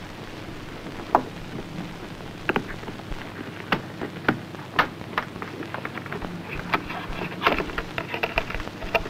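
Surface noise from a degraded 16 mm optical film soundtrack: steady hiss with irregular clicks and pops, which come more often in the second half.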